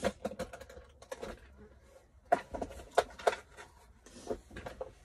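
Scattered light clicks and taps of makeup items being rummaged through and handled, with a few sharper clicks about halfway through.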